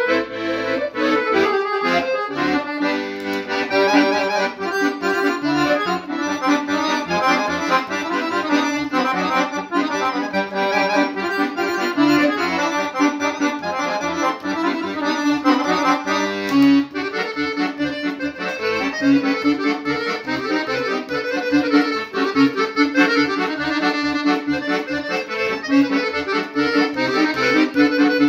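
Solo chromatic button accordion playing a fast Serbian kolo dance tune: quick running melody notes over a steady pulsing bass accompaniment, with a short break in the phrase about two-thirds of the way through.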